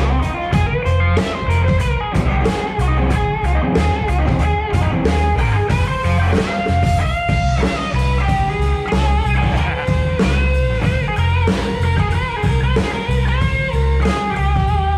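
Live rock band playing an instrumental passage with no vocals: electric guitar notes and runs over a pulsing bass line, with drum hits near the start.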